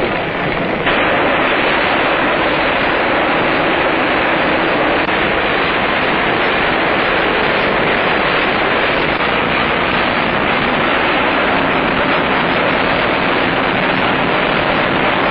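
Blackburn Perth flying boat's engines running: a loud, steady, unpitched noise that fills in about a second in and holds level, heard through old optical-film sound.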